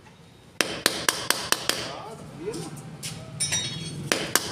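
Quick metal-on-metal knocks, about four a second, as the rocker-arm holder from a Honda CB Shine cylinder head is tapped to drive out its rocker shaft pin and free the worn rocker arm. A run of about six knocks comes about half a second in, then a lull, then another quick run near the end.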